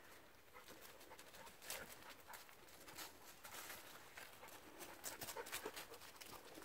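Faint, irregular crunching and rustling of footsteps, a person's and two dogs', through dry fallen leaves on a woodland path.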